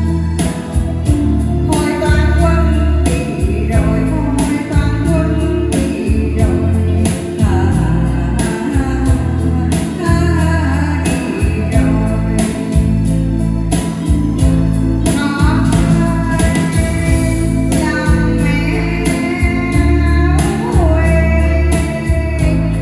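A woman singing a Vietnamese ballad over a steady instrumental accompaniment of bass and guitar, her voice sliding between notes in long phrases.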